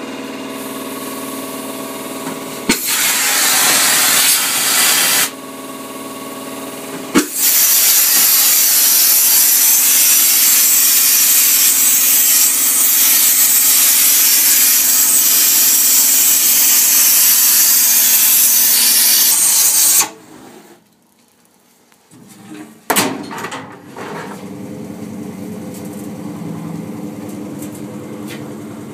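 Handheld gas torch hissing loudly as it melts silver in a casting crucible. It starts about three seconds in with a click, drops back briefly, then runs at full strength after another click near seven seconds, and cuts off abruptly around twenty seconds. A steady machine hum with a few pitched tones sounds before the torch starts and again near the end.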